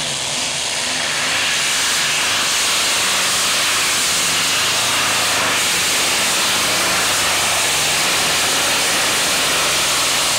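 Modified tractor-pulling tractor's engine at full throttle under load as it drags the weight sled, a loud steady roar with a strong hiss, getting louder about a second in.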